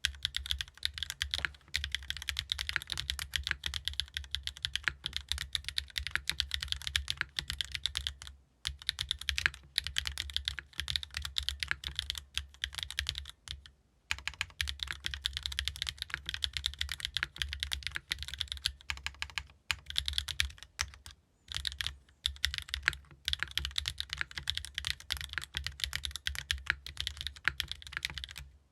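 Steady fast typing on a mechanical keyboard with Gateron raw switches, in an aluminium-plate, O-ring-mounted GEON F1-8X with no foam and ABS double-shot keycaps: rapid key clacks with a few brief pauses.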